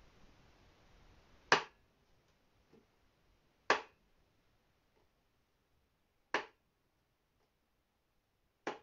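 Four sharp single strikes on a washboard, evenly spaced about two and a half seconds apart, beating out a slow tempo for an a cappella song.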